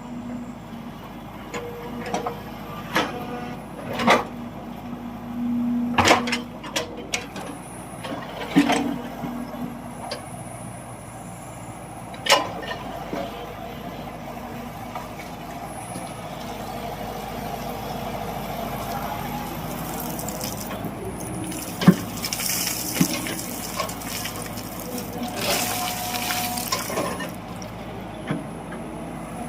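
Hyundai heavy machine working: a steady engine hum with repeated sharp knocks and clanks, and two bursts of hissing later on.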